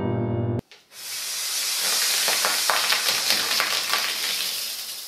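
A Mentos-and-cola geyser erupting from a plastic Coca-Cola bottle: a loud fizzing hiss with crackles, starting about a second in and slowly fading toward the end.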